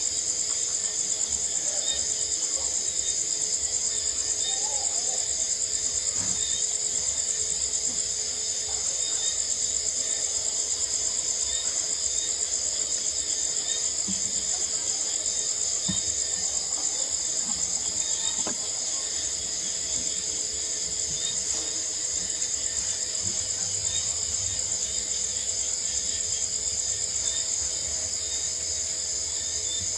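Steady chorus of night insects: a dense, high-pitched, rapidly pulsing trill that goes on without a break, with a few faint clicks beneath it.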